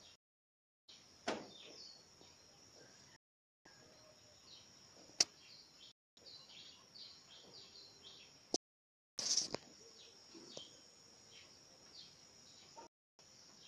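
Faint background of small birds chirping, many short falling chirps, over a steady high hiss, with a few sharp knocks. The sound cuts out completely for a moment several times.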